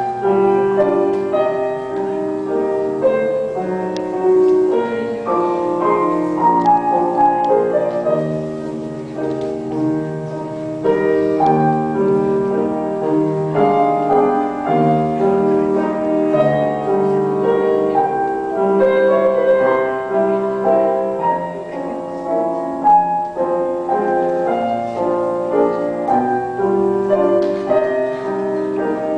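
Piano music playing continuously as the accompaniment to a ballet class exercise.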